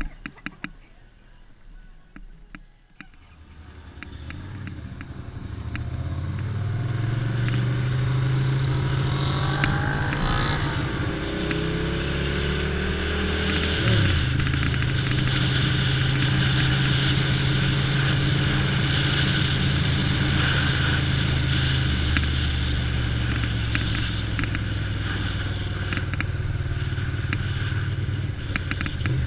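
1988 Ducati Paso 750's V-twin engine pulling away after a few quiet seconds and accelerating, its pitch climbing and then dropping at gear changes about ten and fourteen seconds in. After that it runs steadily at cruising speed, with wind rushing over the helmet-mounted camera.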